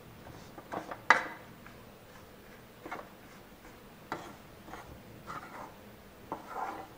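Steel spoon scraping and knocking against a steel kadai while stirring a dry, crumbly mixture of roasted wheat flour and sesame: irregular scrapes and clicks, the sharpest about a second in.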